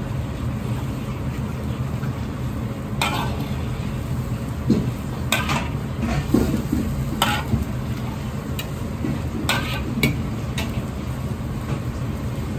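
Metal ladle stirring a simmering chili-bean sauce in an iron wok, with about half a dozen sharp clinks of ladle against the wok, over a steady low rumble.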